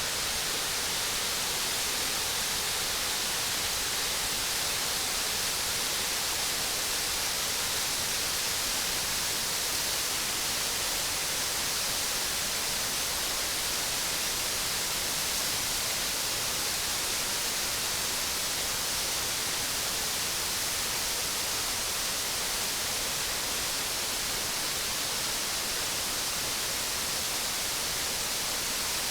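Large waterfall with a drop of roughly 60 to 80 feet: a loud, steady rush of falling water that does not change.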